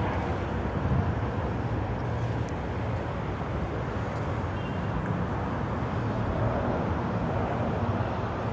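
Steady road traffic and engine noise, an even low rumble with no single event standing out.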